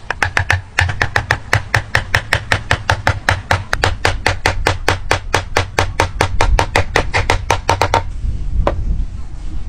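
Steel-headed hammer striking the end of a wooden joint in a rapid, even run of blows, about six a second, driving the joint pieces together. The blows stop about eight seconds in, followed by one last single strike.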